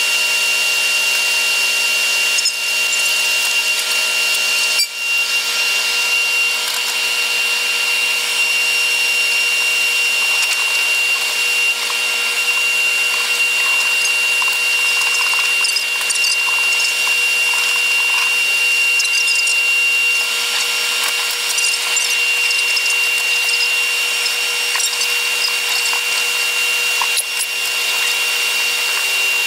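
Running sound of a Taiwan Railway EMU100 electric train played back eight times fast: a steady high whine over a hiss, with nothing low in it. A brief dip about five seconds in.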